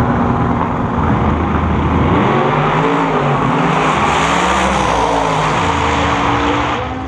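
Drag radial race cars making a full-throttle pass down the drag strip, the engine note climbing and dropping with each gear change, then falling away sharply near the end as the cars go downtrack.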